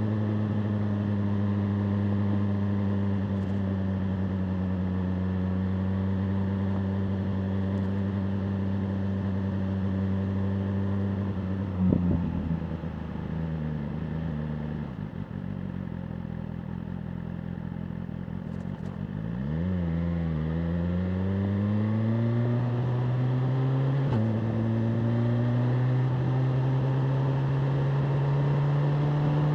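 BMW M1000R Competition's inline-four engine under way: a steady running note that sags slowly, then drops sharply about twelve seconds in and stays lower and quieter for several seconds. It then climbs again as the bike accelerates, with a quick step in pitch about twenty-four seconds in, typical of a gear change, before rising once more.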